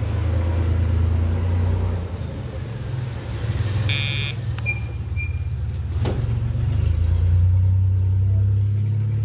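A motor vehicle's engine running close by: a loud, low, steady rumble that swells and eases. A short high-pitched beep sounds about four seconds in, and a sharp click comes about two seconds later.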